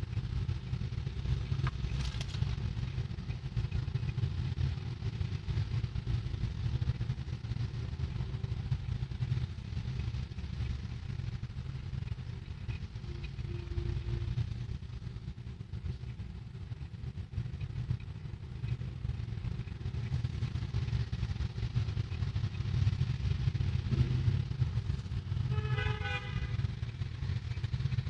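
Steady low rumble of road traffic. A short pitched tone like a horn comes near the end.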